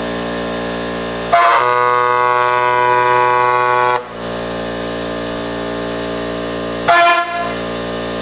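Air horn blown in one loud blast of about two and a half seconds, then a short toot about seven seconds in, over a steady engine-like hum.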